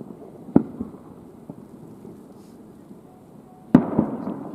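Fireworks shells bursting at a distance: one bang about half a second in, then a louder bang near the end that echoes on.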